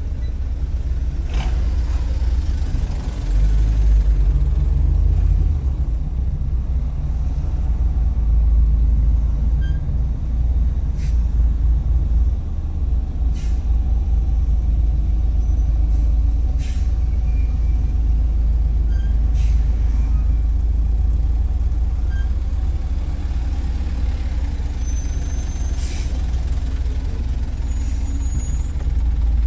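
Steady low rumble of heavy trucks and cars idling and creeping in slow, stop-and-go traffic, heard from inside a car, with a few brief sharp sounds scattered through.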